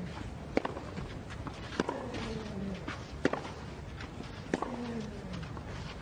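Tennis rally: sharp racket strikes on the ball, a little more than once a second. After alternate strikes comes a short grunt from the hitting player, falling in pitch.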